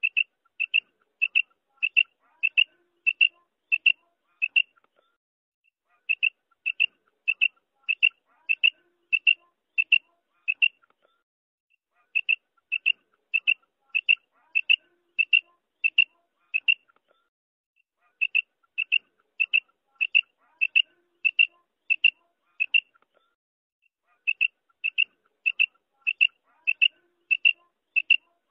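Female quail calling: series of about eight short, sharp, high notes, roughly two thirds of a second apart, with each series repeated about every six seconds.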